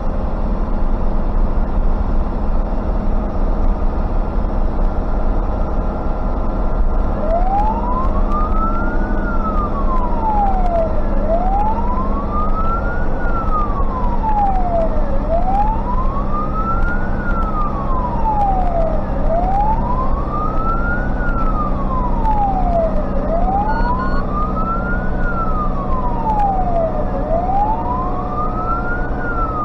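Cab of a Tatra 148 fire engine under way, its air-cooled V8 diesel running steadily. About seven seconds in, a wailing siren starts, slowly rising and falling about once every four seconds.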